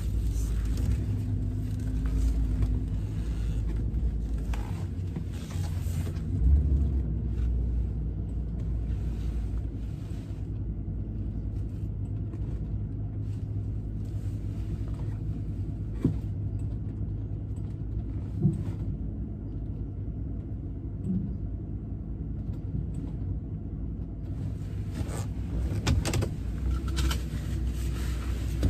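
Truck running, heard from inside the cab as a steady low engine and road rumble. A few brief knocks and rattles sound through it, more of them near the end.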